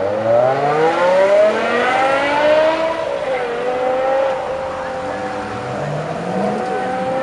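BMW M5 (E60) with its 5.0-litre V10 accelerating hard away, the engine note climbing steadily for about three seconds, then holding a steady high pitch. Another car's engine rises faintly underneath near the end.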